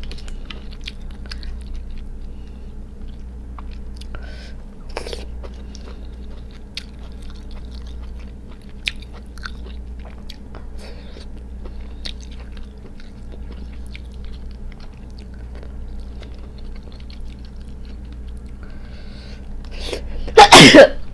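Cooked crab being picked apart by hand and eaten: faint clicks and crackles of shell and chewing over a steady low hum. One loud, brief burst comes near the end.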